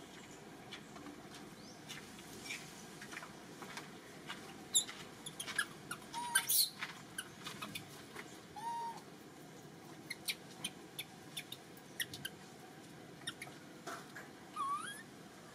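Faint animal calls: a few brief high squeaks and a short rising chirp near the end, among scattered sharp clicks and ticks over a soft outdoor background.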